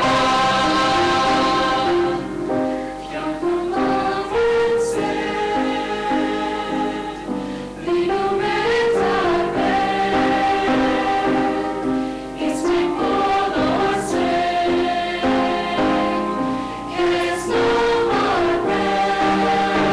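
A mixed choir of women's and men's voices sings an Armenian song in harmony, over short repeated chords from a piano accompaniment.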